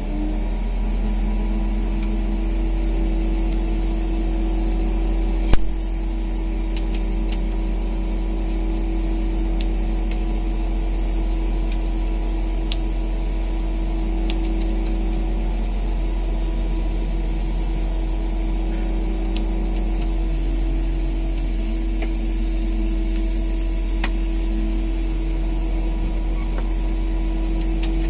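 Fishing boat's engine running steadily, a low hum with a steady whine over it, and a single sharp knock about five and a half seconds in.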